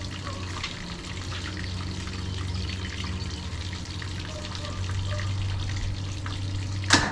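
1976 Johnson 135 hp two-stroke outboard idling steadily in a test tank, with water churning and splashing around it, running on fuel dosed with Seafoam. Near the end a sharp click and a much louder sound cut in.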